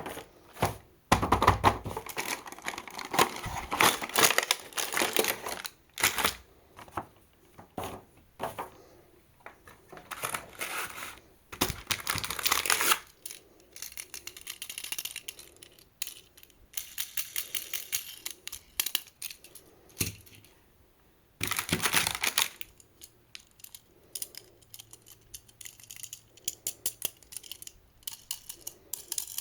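Small die-cast toy cars clattering and clicking as they are handled, in several bursts of dense clatter with runs of rapid ticking between them.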